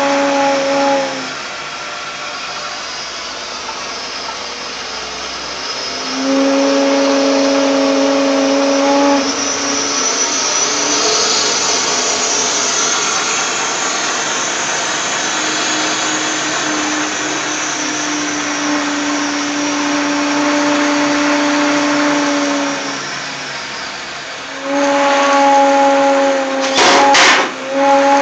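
Milling machine running with an abnormal noise: a low hum that comes and goes in spells of a few seconds over a steady mechanical rush and hiss. A few sharp knocks near the end.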